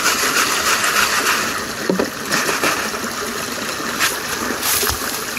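Shallow creek running steadily over rocks, with some splashing as gravel is washed through a classifier screen into a water-filled bucket.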